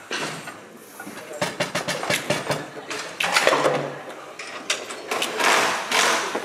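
Foosball rods and players clacking and rattling, with a quick run of sharp knocks, amid the clatter of a foosball tournament hall.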